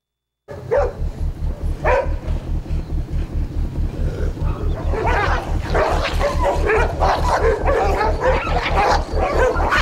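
Dogs barking and yipping: two single barks in the first two seconds, then several dogs barking over one another from about five seconds in. Underneath runs a steady low thumping pulse, about five beats a second.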